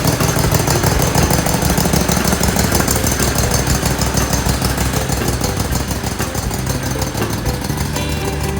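Riding lawnmower engine running steadily with a fast, even firing pulse. Music comes in at the very end.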